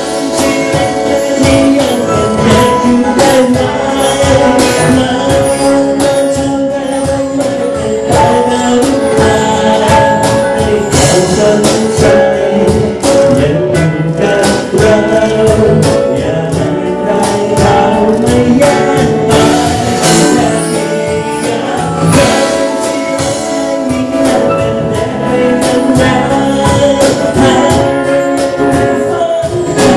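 Live pop band music: a male vocalist singing into a microphone, backed by guitar, keyboards and trumpet, over a steady beat.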